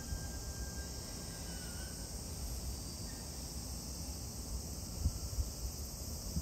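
Steady high-pitched chirring of insects, over a low rumble with a couple of soft bumps near the end.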